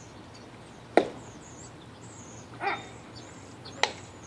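A baseball pitch smacks sharply into the catcher's mitt about a second in. A short shouted call follows, then another sharp smack near the end.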